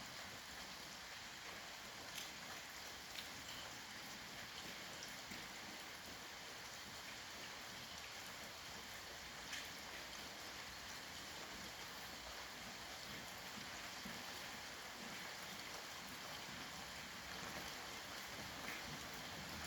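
Steady rain falling: an even hiss with now and then a single louder drop ticking.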